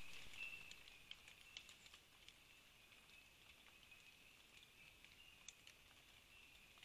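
Faint forest ambience: a steady, high-pitched insect trill, with scattered light ticks and rustles.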